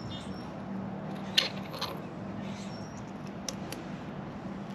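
A hand tool clicking and clinking against the metal fittings at an SD20 sail drive's propeller shaft. There are a few sharp clicks: the loudest comes about a second and a half in, and two more follow in quick succession later on.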